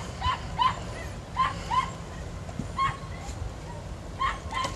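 A dog yipping: about eight short, high yaps, mostly in quick pairs, spread across a few seconds.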